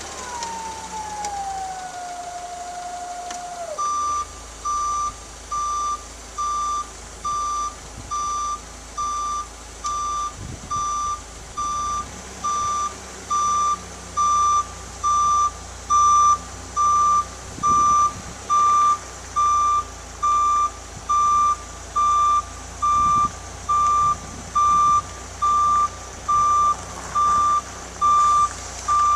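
Hyster 50 propane forklift's backup alarm beeping at one steady pitch, a little more than once a second, with the forklift's engine running underneath. In the first few seconds, before the beeping starts, a whine slides down in pitch as the just-started engine settles.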